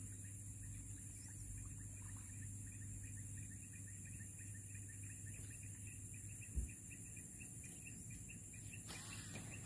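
Steady high-pitched insect chirring from the surrounding grassland over a low rumble, with a faint rapid ticking through most of it and a single thump about two-thirds of the way through.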